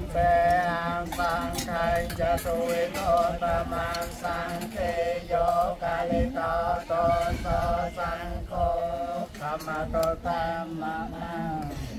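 A male voice chanting in a melodic, wavering line, syllable after syllable, with a low steady hum underneath.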